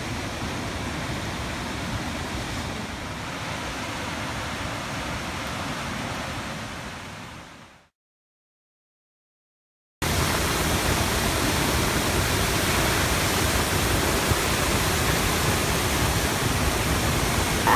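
Steady rushing roar of a waterfall. It fades out about eight seconds in, there are a couple of seconds of silence, and then it cuts back in abruptly.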